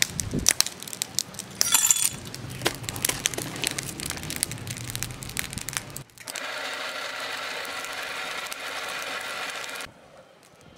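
Small pieces of brass scrap clinking and rattling as they are handled and dropped into a steel melting crucible. Then a steady rushing noise from the brick furnace fire, heating the crucible, for about four seconds, cutting off abruptly near the end.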